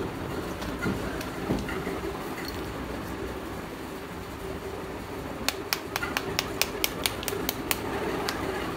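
Roasted multani mitti (fuller's earth) slabs clicking as they are handled, then a quick run of about a dozen light hammer taps, about five a second, on one clay slab to crack it open and check whether it is roasted right through.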